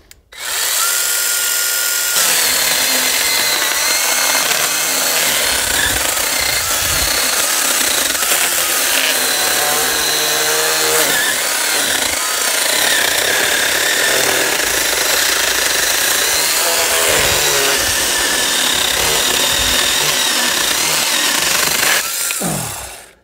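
Worx 5-inch 20V battery mini chainsaw running and cutting through a thick log for about 22 seconds, the chain tearing through the wood over a steady motor whine that shifts in pitch. It starts about half a second in and stops suddenly near the end.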